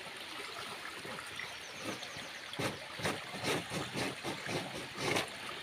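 Water trickling steadily from a spring pipe into basins, joined about two and a half seconds in by a quick run of knocks, clicks and splashes as chopsticks and metal bowls are washed in it.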